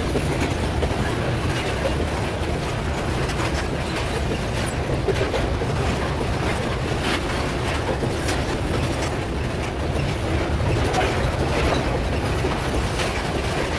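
Loaded grain hopper cars of a metre-gauge freight train rolling past close by: a steady low rumble, with repeated sharp clicks of the wheels over the rail joints.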